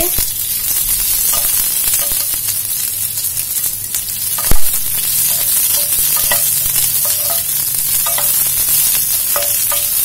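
Onion and capsicum pieces sizzling steadily in hot oil in a nonstick pan while a wooden spatula stirs them. A single sharp knock comes about halfway through.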